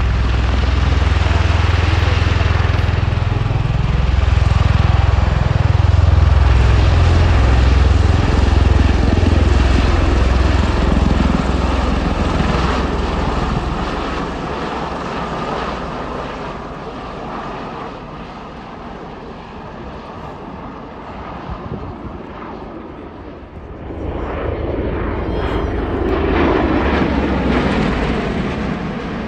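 V-22 Osprey tiltrotor flying low with its rotors tilted up: a loud, deep rotor drone that bends in pitch as it passes and peaks several seconds in. It then fades as the aircraft climbs away and swells again for a few seconds near the end.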